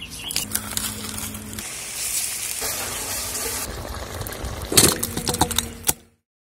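Cooking sounds: a stone roller grinding on a stone slab, then a steady hiss like a curry sizzling in an iron kadai for about two seconds. A few knocks follow near the end before the sound cuts off suddenly.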